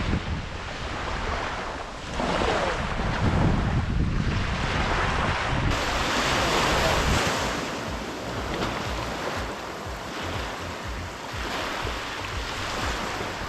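Wind buffeting the microphone over the rush of sea water, in uneven gusts. The sound changes abruptly about six seconds in.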